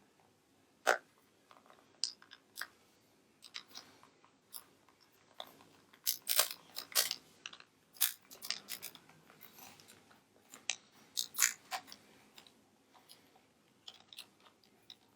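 Plastic shell of a PS4 DualShock 4 controller being pried apart by hand: irregular sharp clicks, creaks and crunches as the clips are worked loose, in two busier clusters about halfway through and near the end.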